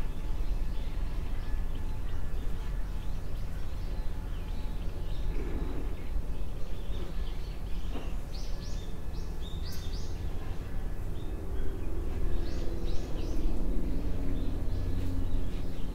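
Outdoor background sound: a steady low rumble with birds chirping, in two short runs, a little past the middle and again near the end.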